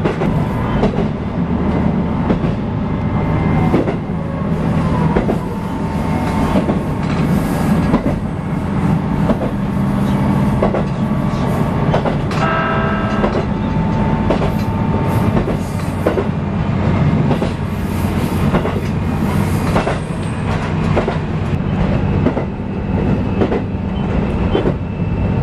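Diesel railcar running along the line, heard from inside at the front: a steady low engine drone with the wheels clicking over the rail joints. About halfway through, a short high-pitched whine rises over the running noise.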